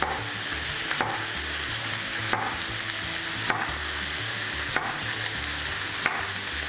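Chicken pieces searing in a frying pan, sizzling steadily. A knife chops through sweet potato on a wooden cutting board, striking about once a second.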